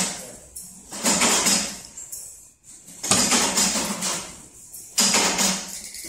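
Bench press cycling as it assembles metal cabinet catches. There are three strokes about two seconds apart, each a sudden noisy burst of metallic clatter and hiss that fades over about a second.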